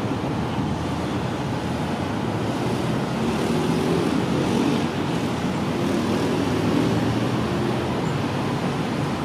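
Steady road traffic and engine noise, with a low engine drone that swells a little in the middle and then eases.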